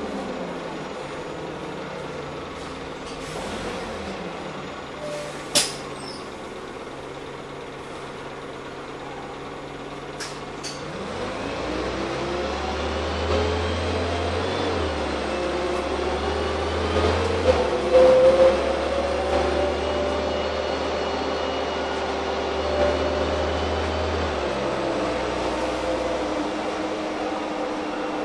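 Heuliez GX317 LPG city bus heard from inside the passenger cabin. It slows and stands with its engine idling, with a sharp click about five and a half seconds in. Around eleven seconds in it pulls away, the engine and driveline whine rising with a heavy low hum as it accelerates, with a few knocks, then easing off again near the end.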